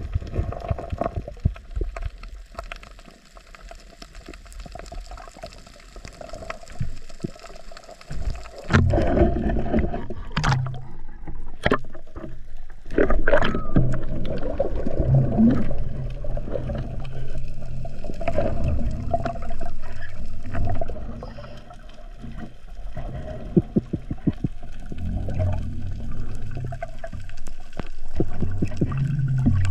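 Muffled water noise on an underwater camera: scattered faint clicks at first, then from about nine seconds in louder sloshing and gurgling as the diver moves up through the water, with a few sharp knocks.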